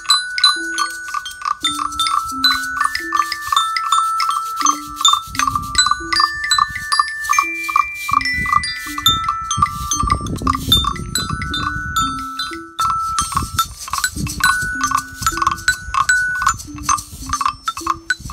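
Children's percussion ensemble playing together: a glockenspiel rings high notes that step up and down over a steady clicking beat and a low stepwise melody line, with extra knocking and rattling through the middle stretch.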